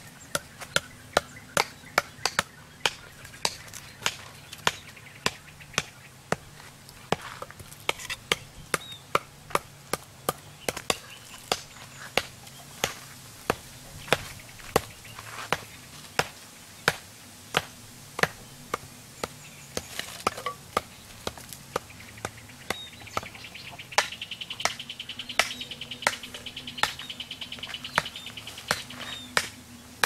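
Sharp wooden knocks, about one or two a second, of a hatchet and a length of bamboo striking wooden stakes as they are cut and driven into the ground. A high, fast-pulsing buzz sounds in the background near the end.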